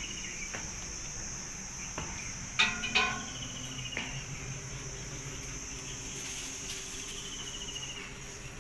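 Steady high-pitched insect drone, with two loud sharp knocks close together about two and a half seconds in.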